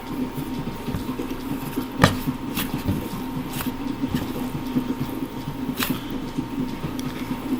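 Slime being squished and worked by hand, with a few sharp wet pops and clicks, over a steady background hum.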